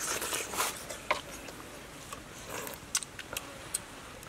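Scattered light clicks and scrapes of spoons and a ladle against a metal cooking pot and bowls as people eat.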